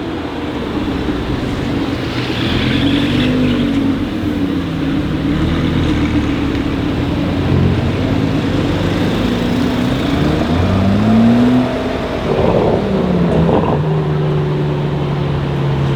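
Car engines in street traffic: several engines rising and falling in pitch as cars accelerate and ease off, one revving up to a peak about eleven seconds in and then dropping. Near the end, one engine holds a steady note.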